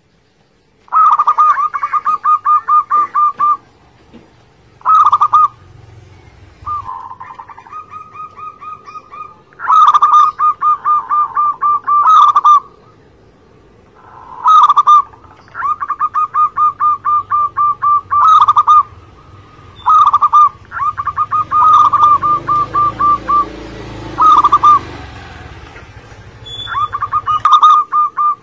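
Zebra dove (perkutut) cooing: phrases of a short opening note followed by a quick run of evenly repeated notes, sung again and again with short pauses between.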